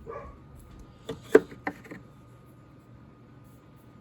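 A few sharp clicks and knocks from the impact socket set being handled, bunched together a little over a second in, one much louder than the rest.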